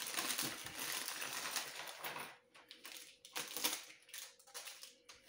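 Plastic bag of Lego pieces crinkling as it is torn open and emptied for about two seconds, then scattered clicks and rattles of plastic pieces tipped out and spread on a wooden table.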